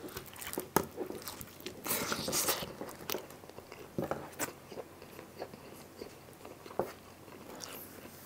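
Mouth-close chewing of a pizza slice: crunchy bites and wet mouth clicks, loudest in a stretch of crunching about two seconds in.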